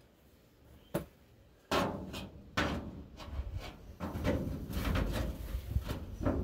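A single sharp click. Then, from nearly two seconds in, a run of irregular knocks, scrapes and rustles, like metal parts and tools being handled.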